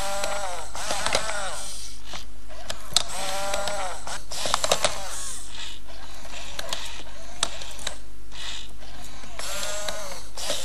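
Hacked i-Cybie robot dog giving about four short electronic meows from its speaker, each rising then falling in pitch. Between them come the clicking and ratcheting of its geared servo motors.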